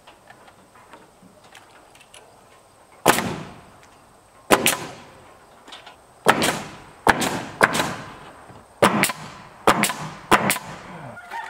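Pneumatic nail gun firing nails up into wooden boards on the underside of an eave. About nine sharp shots, starting about three seconds in and coming faster toward the end.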